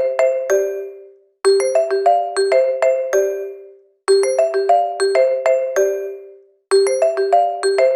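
Phone ringtone: a short melody of about eight quick ringing notes that repeats about every two and a half seconds, each phrase fading out before the next begins.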